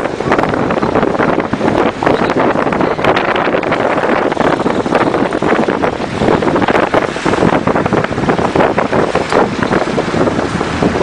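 Loud wind buffeting the microphone over the running noise of a moving vehicle, unbroken throughout.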